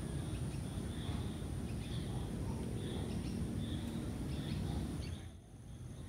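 Outdoor garden ambience: birds chirping over and over above a steady low rumble. The sound dips briefly about five seconds in.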